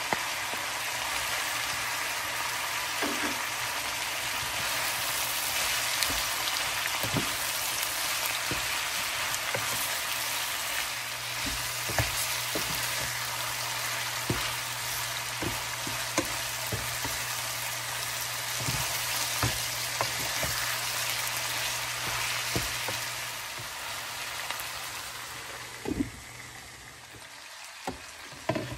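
Pork and long beans sizzling in a frying pan, just after dark soy sauce is poured in, with a wooden spatula knocking and scraping against the pan as they are stirred. A steady low hum runs underneath until near the end, when the sizzling also dies down.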